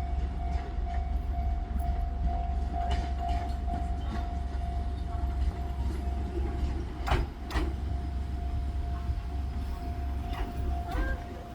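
Japanese level-crossing warning bell ringing steadily over the low rumble of a passing Fujikyu 6000 series electric train. About seven seconds in, two sharp clacks half a second apart come from the train's wheels crossing a rail joint.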